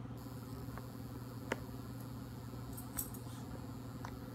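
A steady low electrical hum with a few faint, short clicks spaced about a second apart.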